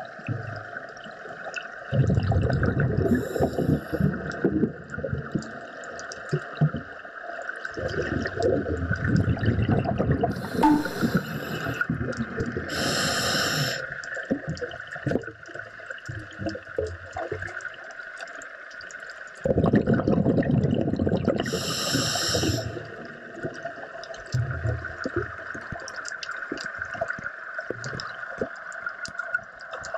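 Underwater sound picked up by a camera in a waterproof housing: water surging in several deep swells that rise and fall, over a constant crackle of small clicks. A few short hissy rushes stand out, about 3, 11, 13 and 22 seconds in.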